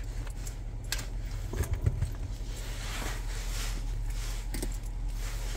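Steady low hum of a car with the engine running, heard inside the cabin, with a few light knocks and clicks.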